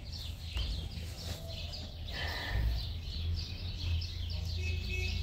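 Small birds chirping over and over in quick short notes, over a steady low rumble.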